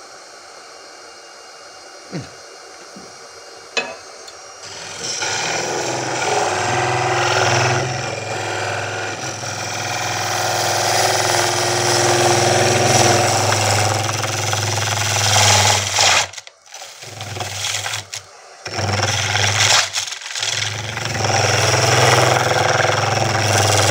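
A small termite-type hollowing tool cutting into spinning end grain on a wood lathe: a rough, steady shearing noise with a low drone underneath. It sets in about five seconds in, after a couple of light clicks, and breaks off briefly three times near the end.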